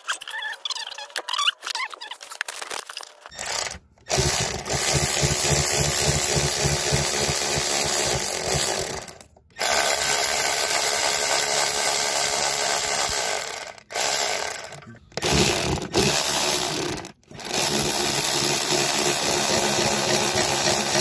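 Light clicks and scrapes for about three seconds. Then a cordless electric ratchet (Milwaukee M12) runs in long bursts with brief stops, spinning the nuts off the exhaust manifold studs.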